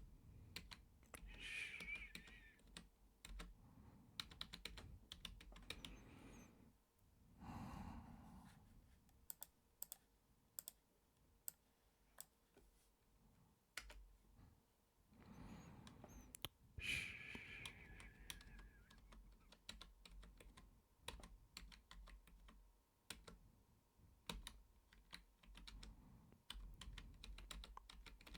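Typing on a computer keyboard: irregular runs of soft keystroke clicks, with three short breathy sounds in between, near the start, about eight seconds in and around seventeen seconds.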